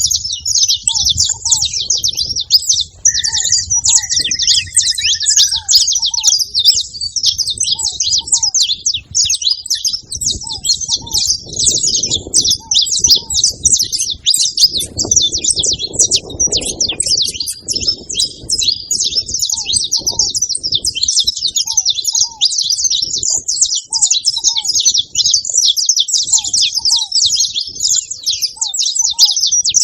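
A flock of saffron finches chattering together, a dense, continuous mass of high overlapping chirps.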